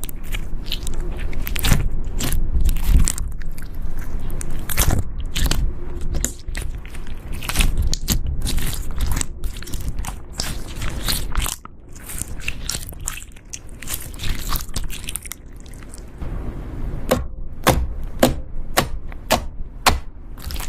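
Slime being squeezed and worked by hand, giving a dense run of sharp crackles and pops. It eases off briefly in the middle and ends in a string of separate loud clicks.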